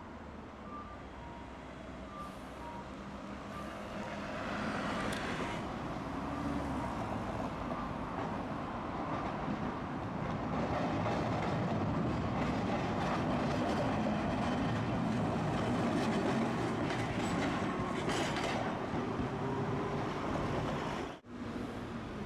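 Tosaden streetcar running on street track: its rumble builds over several seconds, holds loud, then breaks off suddenly near the end. Short, evenly spaced electronic beeps sound in the first few seconds.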